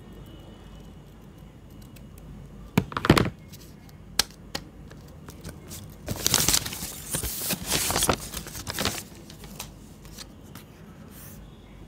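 Scissors snipping through a paper label about three seconds in, then a few seconds of paper tearing and crinkling as the printed sticker label is peeled and handled.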